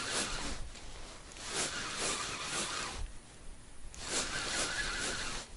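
Spinning reel being cranked, winding a lure back in with a quick rhythmic rasp of several turns a second, stopping for about a second midway before cranking resumes.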